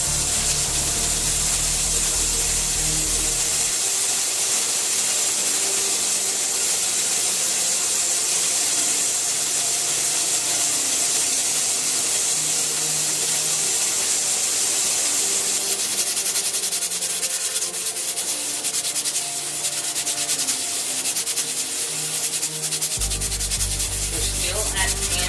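All American 921 pressure canner's weighted gauge jiggling on the vent pipe and letting out steam with a steady hiss; about halfway through the jiggle turns into a fast rattle. The pressure has crept just above 10 psi, which is what sets the weight shaking.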